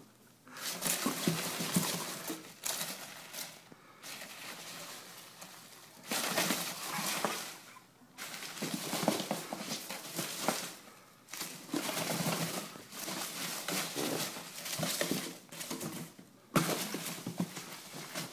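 Packing peanuts rustling and squeaking in a cardboard box as a ferret burrows and thrashes through them. The rustling comes in bursts a few seconds long, with short pauses between.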